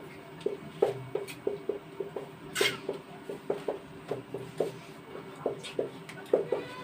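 Marker pen writing on a whiteboard: a string of short, irregular taps and strokes, about two or three a second, with one sharper, brighter stroke about two and a half seconds in.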